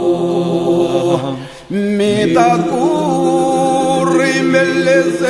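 A slow Albanian elegy sung by male voices over a steady held drone note. About a second and a half in, the singing breaks off briefly. It then comes back on a new long-held note, with an ornamented lead line wavering above the drone.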